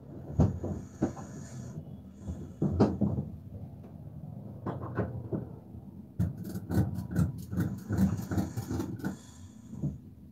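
Irregular knocks and rattles inside a van cab, with a dense run of sharp clicks about six to nine seconds in.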